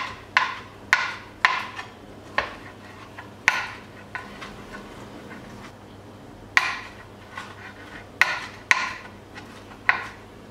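Kitchen knife chopping roasted beetroot into small pieces on a hard chopping board: about a dozen sharp, irregular knocks of the blade hitting the board. The knocks come in two bunches with a pause of about three seconds in the middle.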